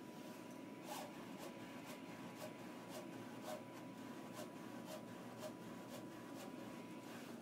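Z Corp powder-bed 3D printer running mid-print: a faint steady high tone with even clicks about twice a second.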